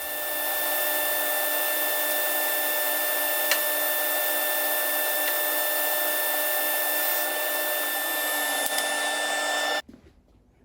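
Power saw running steadily, a motor whine with a hiss, while hardwood boards are cut into strips. There is one sharp tick about a third of the way in, and the sound cuts off abruptly near the end.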